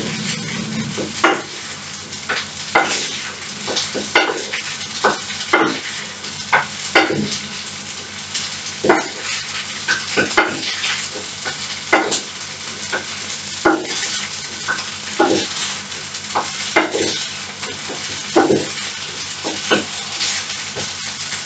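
A wooden spatula stirring and scraping macaroni as it fries in a sizzling frying pan. A steady sizzle is broken by frequent sharp knocks of the spatula against the pan, about one a second.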